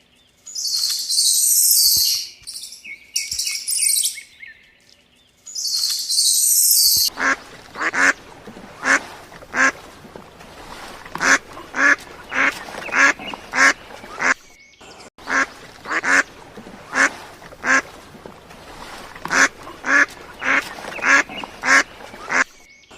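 High-pitched bird chirping for the first seven seconds or so, then a duck quacking over and over, one or two quacks a second, with a short break partway through.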